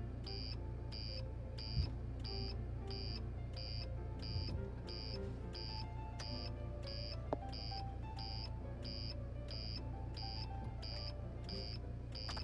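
Hazard warning lights' electronic beeper sounding a steady run of short, high beeps, about two a second, in time with the flashing lamps on the trailer light board, over background music.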